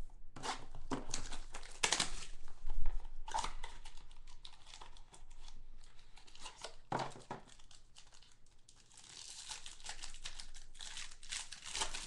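Hands tearing open and crinkling the clear plastic wrapper of a trading card pack, along with its small cardboard pack box, in irregular crackling rustles. The loudest crackle comes about three seconds in, and the crinkling picks up again near the end.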